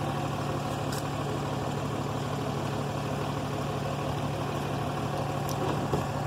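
Vehicle engine idling steadily, with a short sharp click near the end.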